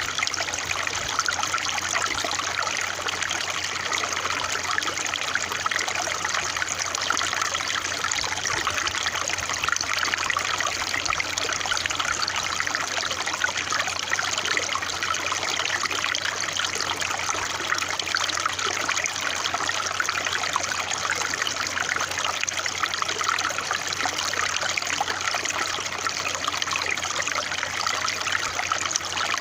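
Running water trickling and babbling steadily, an even, unbroken flow with no pauses or changes.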